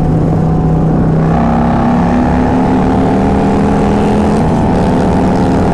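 Stage 2 Harley-Davidson Milwaukee-Eight V-twin motorcycle at highway speed under hard acceleration in a roll-on run. The throttle opens about a second and a half in and the engine pulls hard, its pitch climbing steadily.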